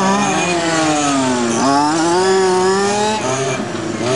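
Several RC race cars' small two-stroke engines running at high revs, rising and falling in pitch as they accelerate and back off; one drops low about a second and a half in, then revs sharply back up.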